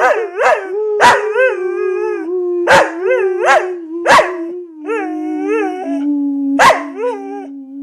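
An Australian Shepherd howling along in a 'duet': about ten short yelping howls that rise and fall, laid over one long held note that sinks slowly in pitch.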